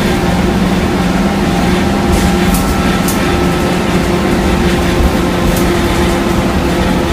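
Scania K230UB single-deck bus heard from inside the passenger cabin while cruising at steady speed. The rear engine gives a steady low drone over tyre and road noise, with a few light rattles from the cabin fittings.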